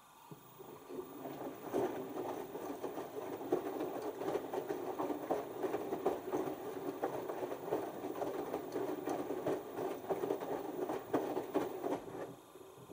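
LG Turbowash 6 Motion front-loading washing machine's drum turning during the first rinse, wet laundry tumbling and splashing in the water with many small thuds over the motor's running. It starts just after the beginning, builds over the first couple of seconds, and stops about half a second before the end.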